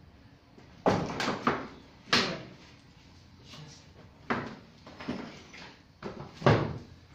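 An irregular series of about nine heavy knocks and clunks, loudest about a second in and again near the end. They come from work on the steel prop and jack holding up a reinforced-concrete garage ceiling slab as the prop is being taken out.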